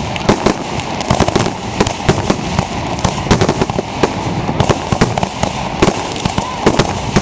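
Aerial firework shells bursting overhead in a dense, irregular string of bangs and crackles, several a second.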